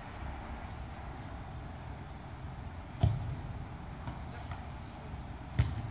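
Two sharp thuds of a soccer ball being kicked, about two and a half seconds apart, over a steady low rumble.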